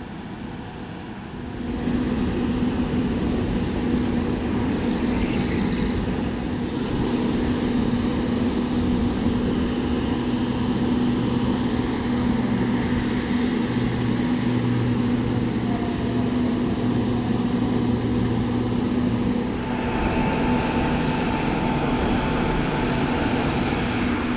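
Boeing 767-200ER's jet noise on the apron: a steady hum with a held low tone, jumping louder about two seconds in and shifting in character a few seconds before the end.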